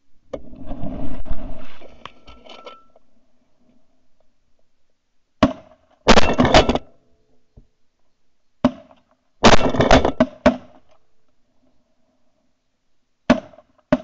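Hunters' duck calls blown in several short runs of quacking, each burst a rasping series of notes, as a duck is called in toward the decoys.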